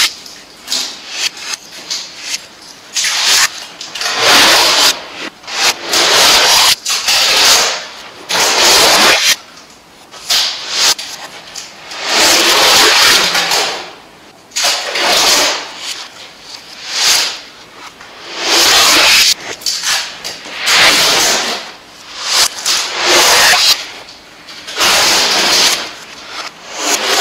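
Adhesive tape being worked by hand close to the microphone: peeled, pressed and rubbed down onto a painted surface in repeated rasping swells of a second or two each, about a dozen in all.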